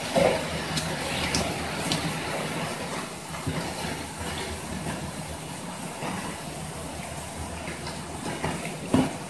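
Knife cutting through a pufferfish on a plastic cutting board, with a few sharp knocks of the blade against the board, the loudest just after the start and another near the end, over a steady low background hum.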